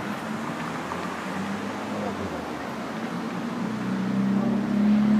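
Street-lamp ballast on a utility pole humming, a steady low electrical hum that swells about four seconds in. The ballast is straining as the power tries to come back after an outage.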